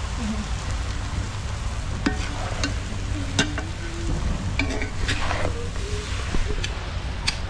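Chowmein being stirred in a pot over a wood fire: frying sizzle with a string of sharp knocks of the stirring utensil against the pot from about two seconds in.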